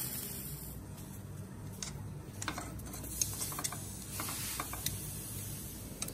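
Metal kitchen tongs clicking and tapping against a frying pan while turning grilled eggplant slices: a scatter of light, irregular clicks, some with a short ring.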